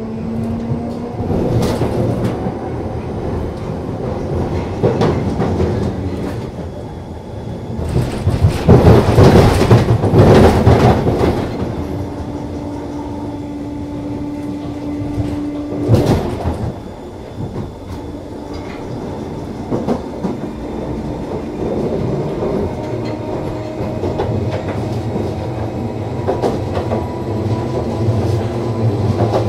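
London Underground 1972 Stock train running between stations, heard from aboard: a steady hum with wheel-on-rail clatter and clicks. A loud rushing stretch comes about eight to eleven seconds in, and a steady tone is held for a few seconds after it.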